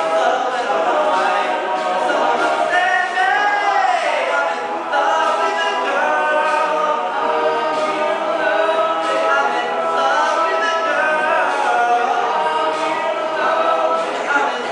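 All-male a cappella group singing: a lead voice with sliding, wavering runs over the rest of the group's sustained backing harmonies.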